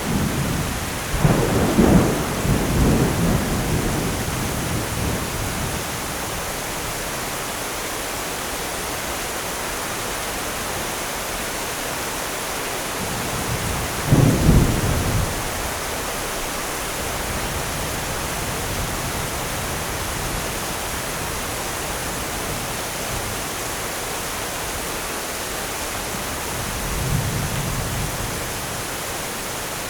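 Steady rain with rolls of thunder. A long rumble with several peaks comes in the first few seconds, a shorter, louder clap about halfway through, and a softer low rumble near the end.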